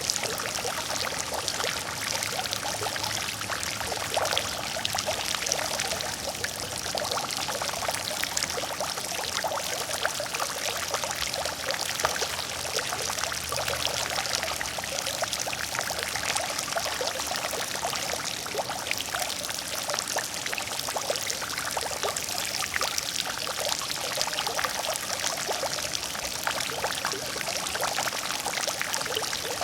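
Water fountain splashing steadily, water pouring and falling into a pool with a dense patter of fine splashes, mostly high and bright with little low rumble.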